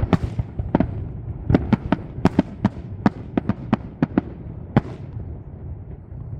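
Fireworks show: aerial shells bursting in quick, irregular succession, about a dozen sharp bangs over a low rumble. The bangs stop about five seconds in.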